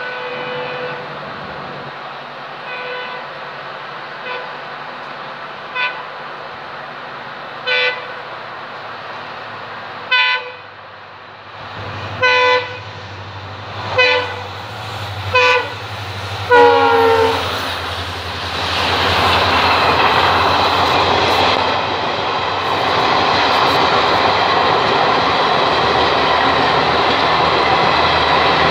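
WDP-4D diesel locomotive sounding its horn in about ten short blasts a second or two apart, each louder as it approaches, the last dropping in pitch as it passes. Then the steady loud rush and rumble of the Shatabdi's coaches running past at speed.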